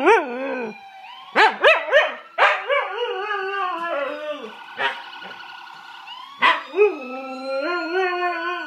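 Siberian husky howling and yodelling: clusters of short up-and-down yips, then longer drawn-out howls that slide downward, one about three seconds in and another near the end.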